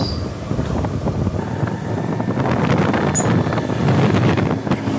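Wind buffeting the microphone of a rider on a moving scooter, with vehicle noise underneath.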